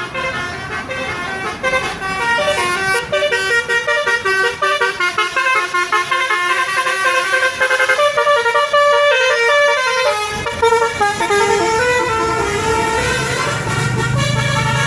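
Bus telolet basuri horn playing a fast tune, its set of air-horn trumpets sounding quick stepped notes that jump up and down in pitch. A low steady hum joins near the end.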